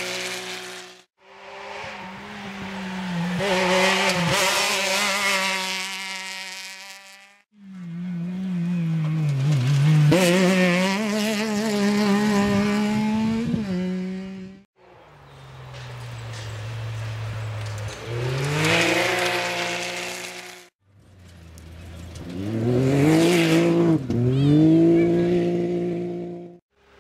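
Side-by-side rally buggies' engines revving hard on dirt, in a run of short separate shots: in each the engine note climbs and drops with throttle and gear changes, and each cuts off suddenly.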